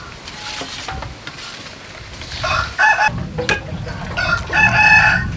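A rooster crowing twice: a short crow about two and a half seconds in and a longer one about four and a half seconds in.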